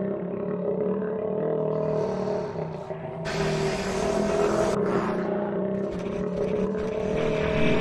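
A steady low drone of several held pitches, with a loud hiss coming in a little over three seconds in and lasting about a second and a half.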